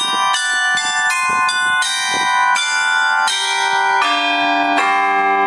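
Belfry bells struck one after another in a quick run of notes, about three a second. Near the end the strikes come slower and on lower bells, and the last one is left ringing.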